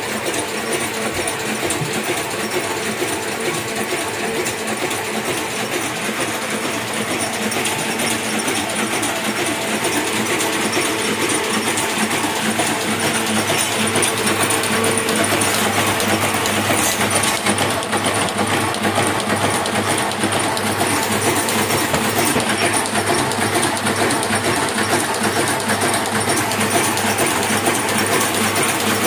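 Hamada 600 offset printing press running at speed, a steady rapid mechanical clatter from its sheet feed, grippers and inking rollers.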